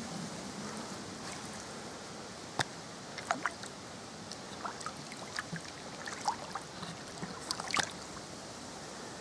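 Common carp splashing in a landing net at the water's surface: a run of short, sharp splashes and drips that starts a few seconds in and is busiest near the end, over a steady hiss.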